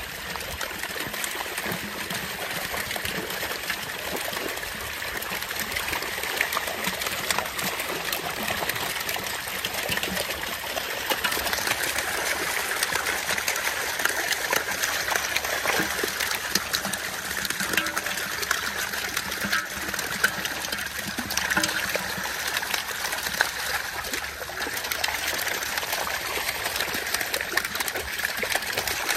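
Continuous dense splashing and spattering of a mass of live fish thrashing in a seine net drawn tight in shallow water, with hands scooping fish into a clay pot.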